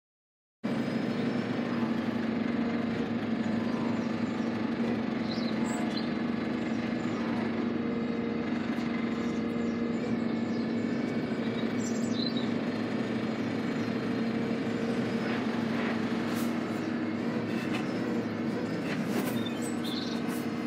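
Steady low drone of an idling lorry diesel engine, with a few faint bird chirps.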